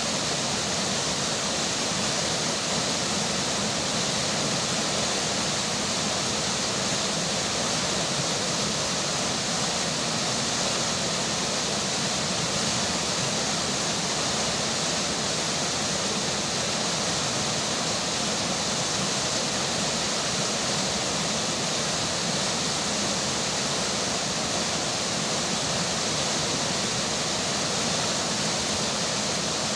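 River water flowing steadily under falling rain: an even, unbroken rushing hiss with no change in level.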